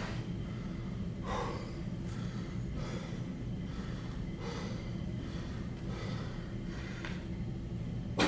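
A bodybuilder's sharp breaths through the nose and mouth, one every second or so, as he strains to hold his poses. A steady low hum runs underneath.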